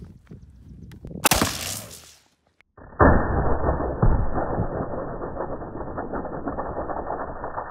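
A single shot from a CETME .308 battle rifle about a second in. After a short break, a much louder, muffled blast from the two taped propane tanks being hit, a second bang about a second later, then a long fading tail.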